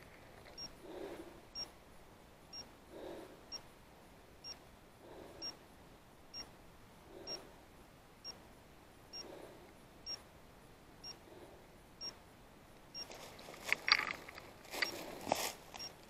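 A dog's electronic beeper collar giving short, high beeps at a steady rate of about one a second. Footsteps and rustling in dry leaf litter run underneath and grow louder near the end.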